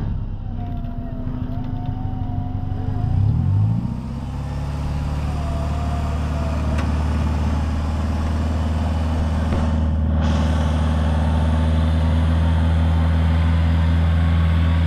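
Small off-road 4x4's engine running, revving up about three to four seconds in and then held at a steady, higher speed.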